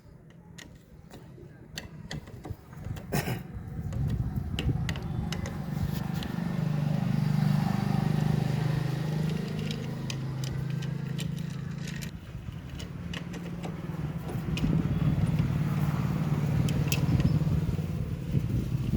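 A motor vehicle engine running nearby, swelling louder about four seconds in, easing off and swelling again near the end, with scattered metallic clicks of tools.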